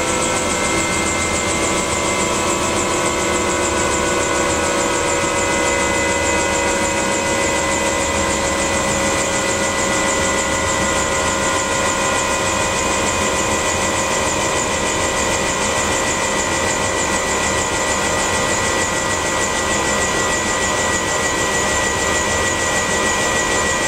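Bell 212's twin-turbine engines running at ground idle, heard from inside the cockpit: a steady turbine whine with several high tones over a loud rushing hiss.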